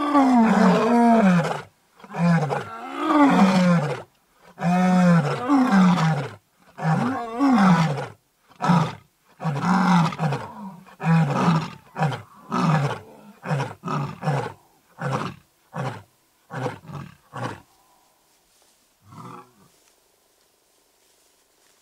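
White male lion roaring a full bout: a few long, deep roars, then a run of short grunts that come quicker and shorter until they stop about three-quarters of the way through. One faint grunt follows a little later.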